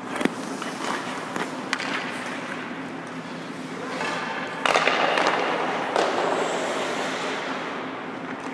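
Ice hockey skate blades scraping on rink ice, loudest in a long scrape about halfway through, with a few sharp clicks of a hockey stick on a puck or on the ice and a steady low hum underneath.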